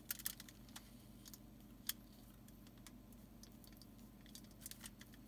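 Faint, scattered crackles and clicks from flux spitting as a soldering iron melts tin-lead solder onto aluminium foil. A few come just after the start, one about two seconds in, and a short cluster near the end, over a low steady hum.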